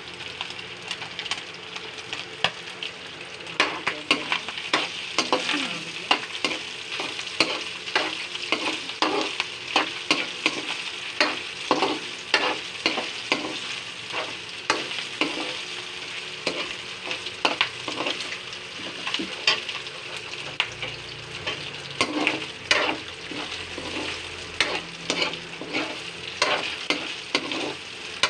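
Sliced hotdogs sautéing with ground pork, onion and garlic in a wok: a steady sizzle, with the stirring ladle scraping and knocking against the pan in irregular strokes, one or two a second.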